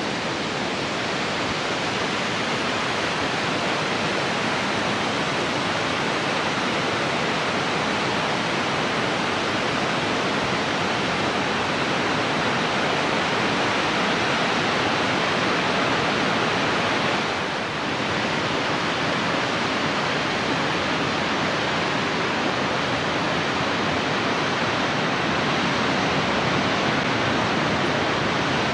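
Water from a dam's spillway discharge rushing and crashing down concrete chutes, a loud steady roar of white water that dips briefly about two-thirds of the way through.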